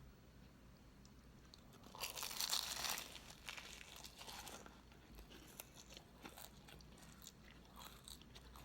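Close-up eating sounds of a person eating cake: a crunchy bite about two seconds in, lasting about a second, then soft chewing with small mouth clicks.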